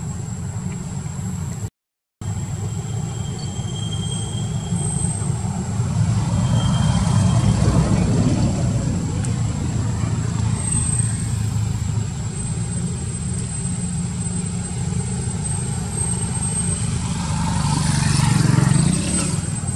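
Steady low rumble of motor traffic, swelling as a vehicle passes about eight seconds in and again near the end, under a continuous high, thin whine.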